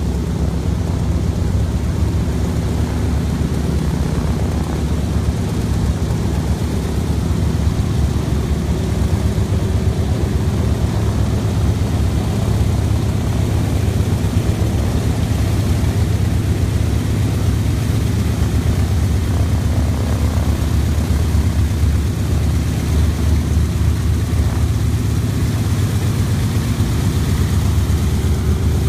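Radial piston engine of a single-engine WWII-era warplane running at taxi power, a steady low propeller drone.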